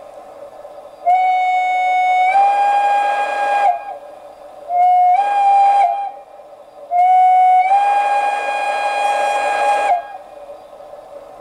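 Sampled steam-whistle sound from the Zimo MX699 sound decoder, with Mathias Henning's sound, in a model Saxon class IK narrow-gauge tank locomotive, played through the model's loudspeaker: three blasts, long, short, long. Each blast steps up slightly in pitch shortly after it starts, with a rush of steam noise mixed in.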